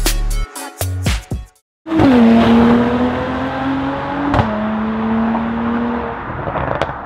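The end of a hip-hop beat, then after a brief gap a car-engine sound effect for a logo: an engine note that dips at its start, then holds at a steady pitch under a loud hiss for about five seconds, with a sharp click partway through, fading out near the end.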